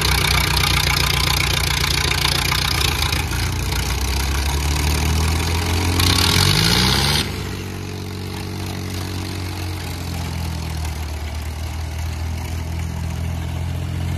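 Diesel tractor engines running at close range. About six seconds in, one engine revs up with a rising pitch, then about seven seconds in the louder engine sound drops away suddenly, leaving another engine running steadily.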